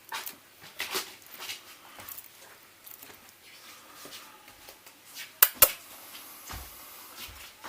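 Small parts and tools being handled while reassembling a first-generation iPod Nano: scattered light clicks and taps, with two sharp clicks in quick succession about five and a half seconds in.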